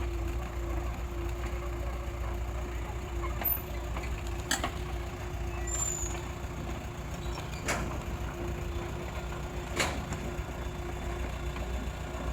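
Excavator's diesel engine running steadily with a low rumble and a steady hum, with three sharp knocks from the working machine.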